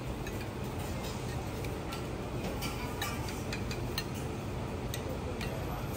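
Light, irregular clicks and taps of metal spoons against small copper saucepans and plates as sauce is spooned out, over a steady low background hum.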